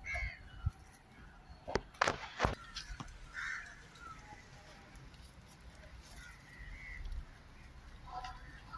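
Old Burma teak planks knocking against each other and the stack as they are handled, a few sharp wooden knocks in the first three seconds, with birds calling several times in the background.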